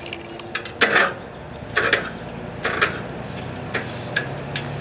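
Sharp clicks and knocks, several in close pairs, from hands working around the seat and controls of a riding mower; the loudest comes about a second in, and no engine runs or cranks.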